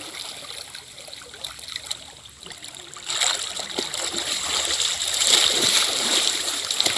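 Water splashing and swirling around a person bathing in a shallow river, dunking her head and thrashing on hands and knees. The splashing grows louder from about three seconds in.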